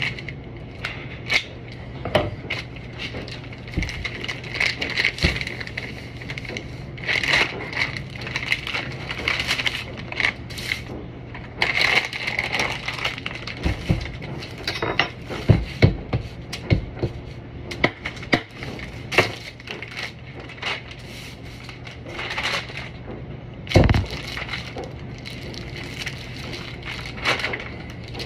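Paper and plastic wrapping crinkling and tearing as a bulk chocolate block is cut from its sack with scissors and unwrapped, with scattered knocks as the block is handled on a wooden bench and one heavy thump about two-thirds through. Near the end, a knife scrapes curls off the chocolate block. A steady low hum runs underneath.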